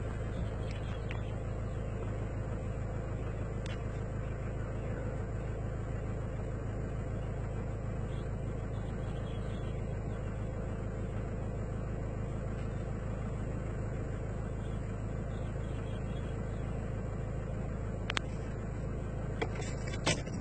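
Car engine idling, a steady low hum heard from inside the cabin, with a few sharp clicks near the end.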